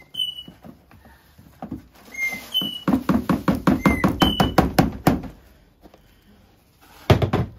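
A fast run of knocks, about six a second for two seconds, as old soil is worked out of a juniper bonsai's root ball, with a short loud burst of knocks near the end. A small bird's short whistled chirps repeat in between.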